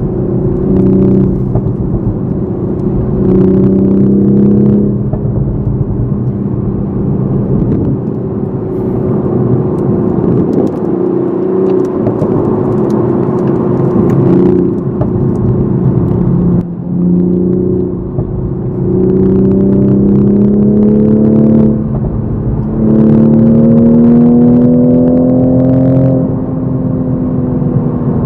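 Toyota GR Supra MK5 engine heard from inside the cabin in sport mode, accelerating and shifting through the gears. Its pitch climbs gently, then steps back down at each of several gear changes.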